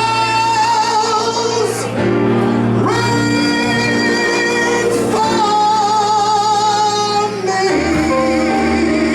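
A singer holding three long notes with vibrato over sustained electric keyboard chords.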